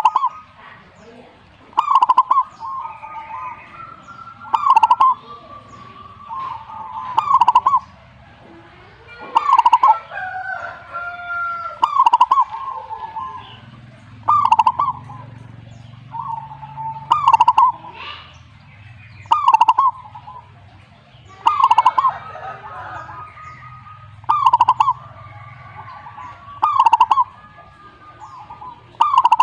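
Zebra dove (perkutut) cooing its song phrase over and over, one short phrase about every two and a half seconds, with fainter bird chirps in between.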